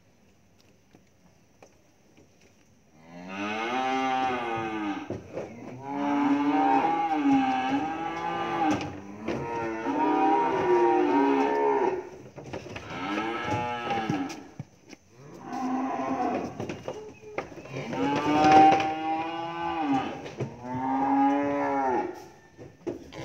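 Young cattle bawling, starting about three seconds in: about seven long calls that bend in pitch, one after another with short gaps, while the calves are unloaded down a wooden truck ramp.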